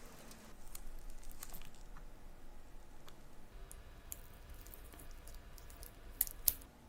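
Light scattered clicks and taps of small metal watchmaking tools and parts, with two sharper clicks near the end.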